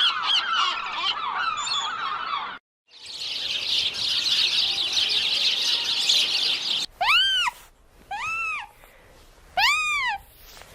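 A sequence of separate bird recordings: first many quick overlapping chirps, then a dense high-pitched chatter as of a flock, then a single bird giving a call three times that rises and falls in pitch.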